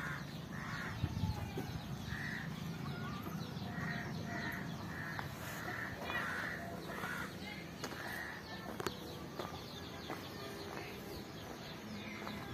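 A bird calling over and over: short, harsh calls about two a second for the first eight seconds or so, followed by a few light clicks.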